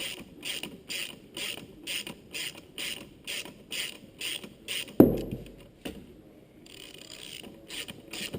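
Ratchet wrench clicking at about three clicks a second as the long engine support bolt is wound in. There is a single loud knock about five seconds in, then the clicking resumes more faintly.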